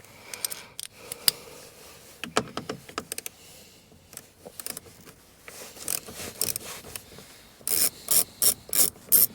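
Hand tools clicking and rubbing against the door panel's fasteners. Near the end a ratchet wrench starts turning out a door-panel bolt in quick strokes of clicking, about three a second.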